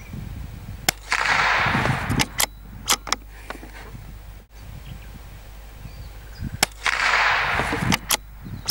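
Two shots from a Lithgow LA101 bolt-action .22LR rifle, about six seconds apart. Each is a sharp crack followed by about a second of hissing noise and a few light clicks.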